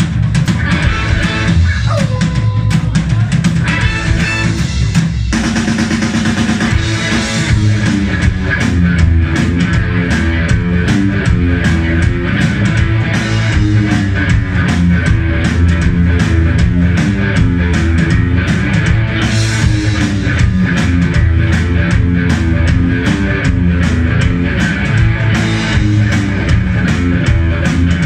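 A rock band playing live and loud: electric guitars, bass guitar and drum kit driving a steady beat.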